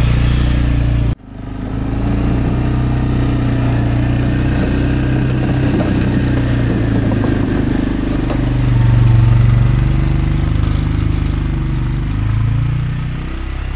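CFMoto CForce 520L ATV's single-cylinder engine running as it drives over snow with a plow blade, rising in pitch and louder for a couple of seconds about two-thirds of the way through as it speeds up. The sound cuts out for an instant about a second in.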